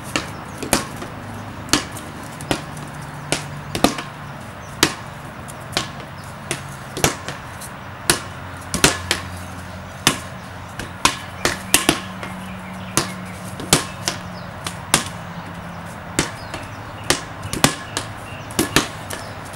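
Red rubber playground ball slapped by hand and bouncing on a concrete patio during a handball rally: a string of sharp smacks, roughly one or two a second, some in quick pairs, over a faint low hum.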